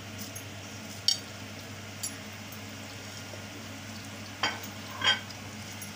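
Sliced onions and whole spices sizzling steadily in hot oil in a pressure cooker, the spices just added for tempering. A few short clicks and knocks are heard about one and two seconds in, and louder ones about four and a half and five seconds in.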